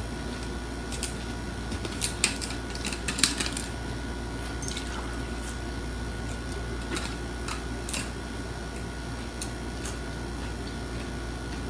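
Steady hum of a loud air conditioner running throughout, with scattered light clicks and small knocks from eating and handling a plastic water bottle and glass.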